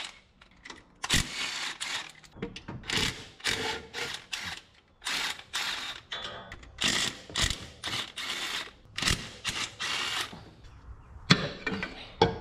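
Ratchet wrench worked in quick, irregular strokes, clicking as it turns a bolt, with two sharp metal knocks near the end.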